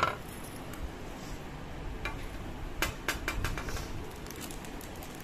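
Plastic pouches of five-metal (panchaloham) jewellery being handled in a plastic storage box: scattered crinkles and light clicks, with a sharp click at the start and a cluster of clicks a little under three seconds in.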